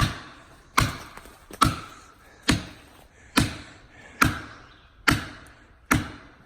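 Eight heavy, evenly paced blows, about one every 0.85 s, each with a brief ring: a felling wedge being hammered into the cut to ease the pinch on a stuck chainsaw bar.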